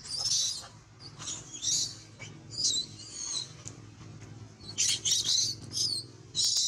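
Baby long-tailed macaque screaming in distress, a series of high-pitched, wavering squeals in repeated short bursts, as an adult macaque grabs and attacks it.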